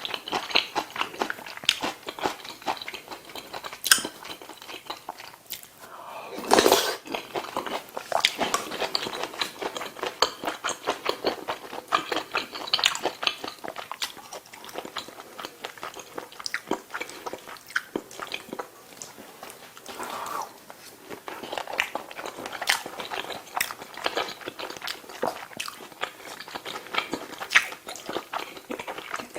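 Close-miked chewing and biting: a person eating with dense, irregular wet mouth clicks, and one louder burst about six and a half seconds in.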